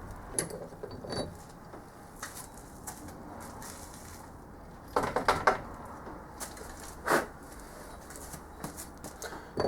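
Light metallic clinks and knocks from hand-tapping a blind hole in a zamak casting and shaking the chips out of it. A quick rattle of several knocks comes about five seconds in, and a single knock follows a couple of seconds later.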